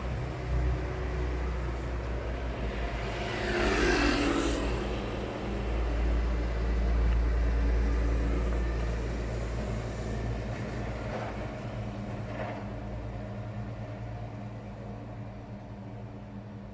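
Steady low rumble of road traffic, with a vehicle passing about four seconds in, its pitch falling as it goes by.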